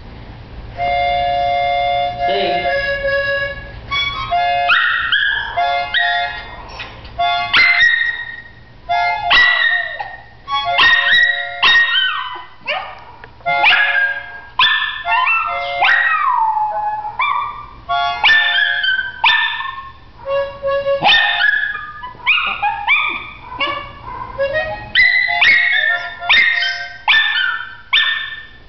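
A Miniature Schnauzer howls along with a harmonica. The harmonica opens alone with steady chords. From about four seconds in the dog joins with a long run of short howls that rise and fall in pitch, between and over the harmonica notes.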